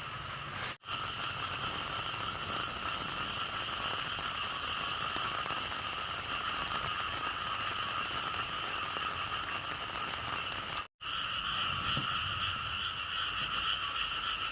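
A dense chorus of frogs calling together, a steady, unbroken wall of sound over a background hiss, cutting out for an instant twice.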